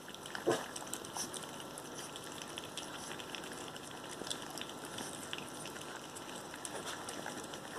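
Several puppies eating together from a stainless steel feeding bowl: steady wet chewing, lapping and smacking with many small clicks, and one louder short sound about half a second in.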